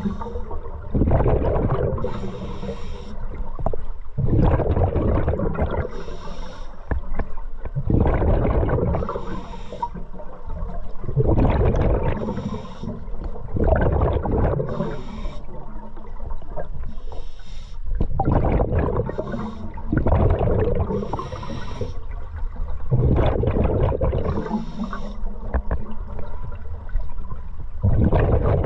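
Scuba diver breathing through a regulator underwater: a hissing inhale, then a rumbling rush of exhaled bubbles, repeating about every three to four seconds.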